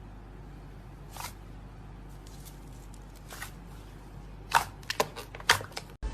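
Slime being handled, giving a few sharp clicks and pops, scattered at first and then several in quick succession near the end, over a steady low hum.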